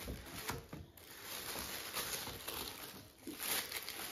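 Tissue paper rustling and crinkling as it is pulled out of a paper gift bag and unwrapped, with two brief lulls.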